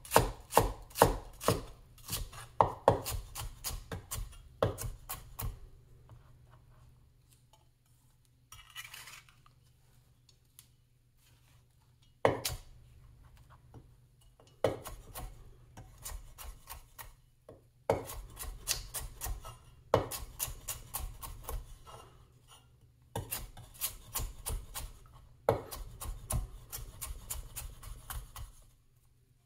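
Large vintage Chinese cleaver chopping red onion on a wooden cutting board: quick runs of knocks as the blade goes through the onion onto the wood. The chopping stops for several seconds a few seconds in, broken by a brief scrape, then resumes in runs.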